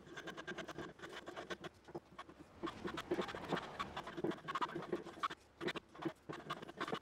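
A hand tool worked in quick, irregular scraping strokes against a wooden workpiece, several strokes a second.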